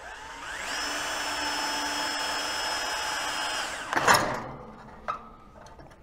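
Power drill running in reverse, winding the piston of a gas-law cylinder back up its threaded rod to draw the cylinder into a vacuum. The motor spins up over about half a second, runs steadily for about three seconds, then winds down, with a single knock just after it stops.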